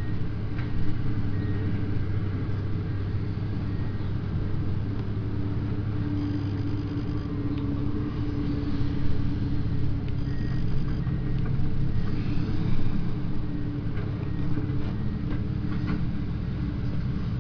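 Diesel engine of a Komatsu hydraulic excavator running steadily under work while it lays hardcore, a constant low drone with a steady hum. Faint short high-pitched beeps come and go at times.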